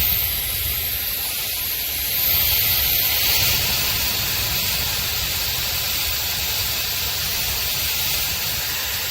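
Shark FlexStyle HD430 hair dryer running: a steady rush of blown air with a faint high-pitched motor whine, getting a little louder for a moment about two seconds in.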